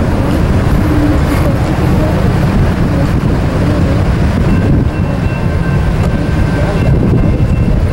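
Heavy wind buffeting the microphone over the low rumble of a passing freight train, the CSX local led by a GP15T diesel locomotive. About halfway through, faint steady high-pitched tones come in.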